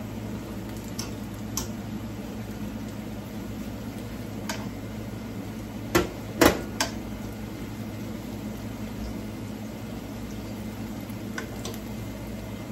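Ripe plantain slices frying in oil in a skillet, a steady hiss with a low hum under it, while a metal fork clinks against the pan and plate. The loudest are three sharp clinks close together about six seconds in.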